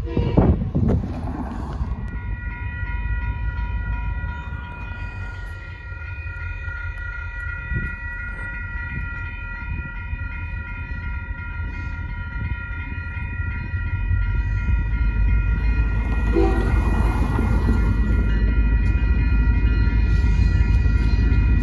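Railway grade-crossing warning bell ringing steadily from about two seconds in. The low rumble of an approaching freight train led by a CP EMD GP20C-ECO locomotive grows louder from about two-thirds of the way through.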